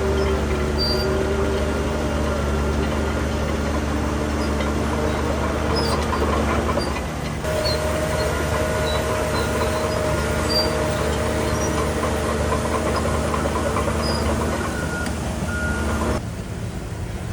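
Heavy diesel construction machinery running steadily with a deep engine drone. The sound changes abruptly about seven seconds in and drops a little near the end.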